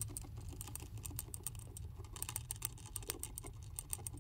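Hamster drinking from a gravity-fed water bottle, licking at the metal sipper tube in rapid, irregular clicks, several a second.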